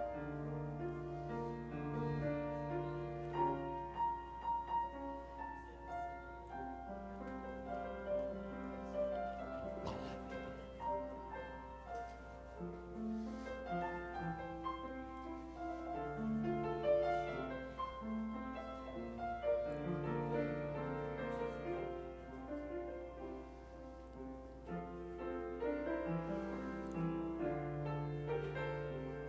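Slow instrumental piano music with held chords and a melody line moving above them, over a steady low hum.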